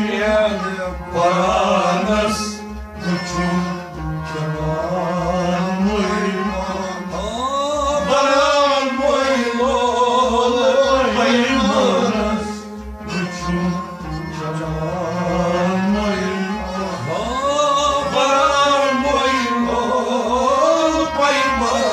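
Sufi devotional song: a solo voice sings long, ornamented, gliding lines over instrumental accompaniment and a steady low beat of about two to three pulses a second.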